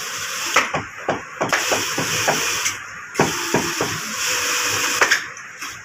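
Industrial sewing machine stitching leather glove pieces: a steady motor hiss broken by irregular clicks and knocks as the machine runs in short spurts.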